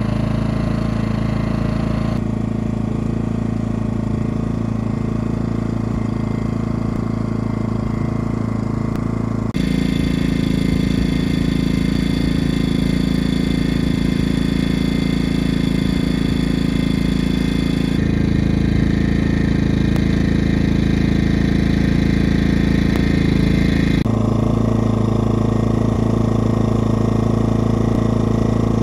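Predator 2000 inverter generator's small single-cylinder four-stroke engine running steadily with an even hum. The sound shifts abruptly in level and tone several times.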